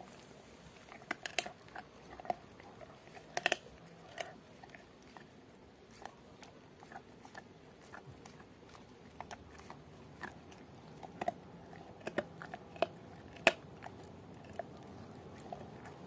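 A young Rottweiler chewing a pork bone: irregular crunching and sharp cracks of bone between its teeth, with a quieter stretch in the middle. The loudest cracks come about three and a half seconds in and again near the end.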